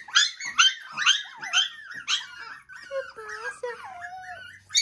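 Six-week-old Maltese–Shih Tzu mix (malshi) puppies yapping in quick, high-pitched barks, then whining and whimpering in wavering cries about halfway through, with more yaps near the end.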